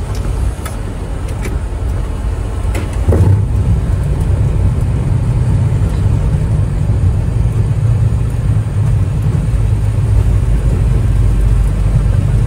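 Cockpit sound of a Boeing 737 MAX touching down and rolling out on the runway: a steady low rumble with a few sharp knocks in the first three seconds. The rumble swells about three seconds in and stays loud.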